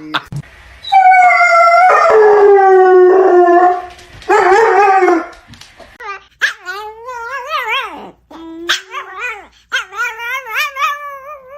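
A dog howling: a long, slowly falling howl held for about three seconds, a shorter one after it, then a string of wavering, up-and-down howls.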